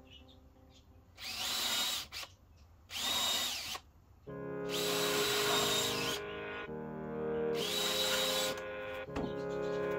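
Cordless drill boring into a timber frame in four short runs. The whine rises each time the trigger is pulled, and the third run is the longest.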